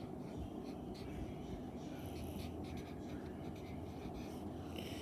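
Marker pen writing on paper: short, irregular scratchy strokes as letters are drawn.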